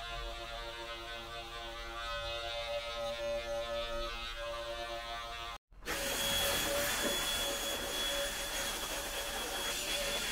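Electric clippers buzzing steadily as they shear the tufted rug's yarn pile. About halfway through, the sound cuts off abruptly and gives way to a louder handheld vacuum running with a steady whine as it sucks up loose yarn trimmings from the rug.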